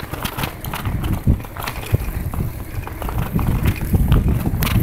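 Wind buffeting the phone's microphone while cycling in the rain, a heavy low rumble, with many irregular sharp ticks and taps over it.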